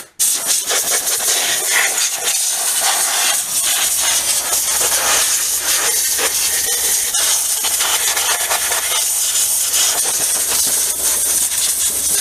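Compressed-air blow gun hissing loudly and continuously as it blasts dust out of an opened engine. A low steady hum comes in about four seconds in.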